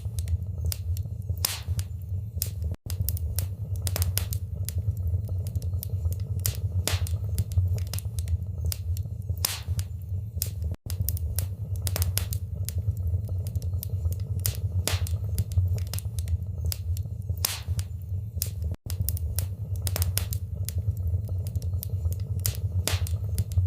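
Wood fire burning in a fireplace: frequent sharp, irregular crackles and pops over a steady low rumble. The sound drops out for an instant three times, about eight seconds apart.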